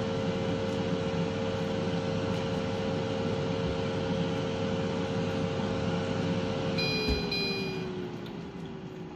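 Philips Airfryer XXL running, a steady fan hum with a whine. About seven seconds in, its timer reaches zero, it beeps twice, and the fan starts to wind down, its whine falling in pitch.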